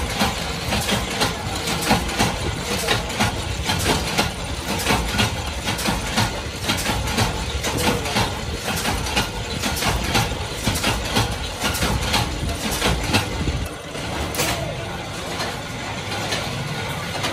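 Workshop machinery running: mechanical stamping presses knocking several times a second over a steady motor drone.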